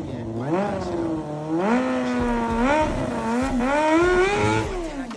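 Suzuki GSX-R400 inline-four engine revving, its pitch rising and falling several times under the throttle and dropping away near the end.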